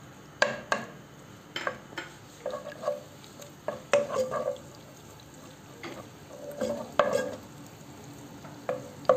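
Minced garlic frying in oil in a nonstick pot, a faint steady sizzle under irregular scrapes and knocks of a spoon stirring it against the pot.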